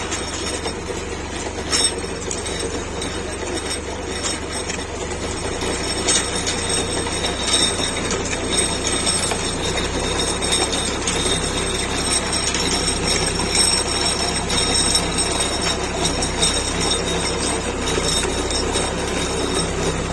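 Tractor-mounted pit-digging auger at work: the tractor's diesel engine runs steadily under a continuous high-pitched metallic squeal from the driven machinery, with a few sharp clanks.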